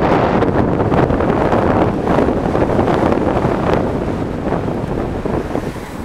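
Wind buffeting the microphone of a riding electric scooter, a loud rushing roar with no engine sound, dying down over the last second or two.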